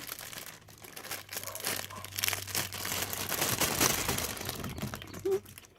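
Plastic packaging bag crinkling and rustling as it is handled, in an irregular, continuous run that stops just before the end.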